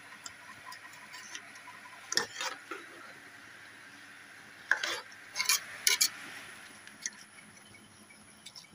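Metal spoon stirring soaked rice into chicken masala in a large metal pot: wet scraping with a few sharp clinks of the spoon against the pot, the loudest about five to six seconds in.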